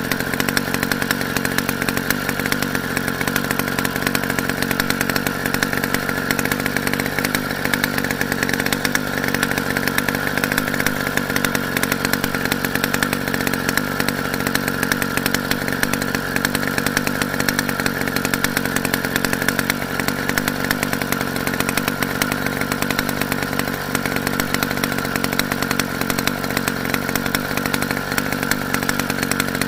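Motorized bicycle's small engine running steadily at an even speed, a fast buzzing drone.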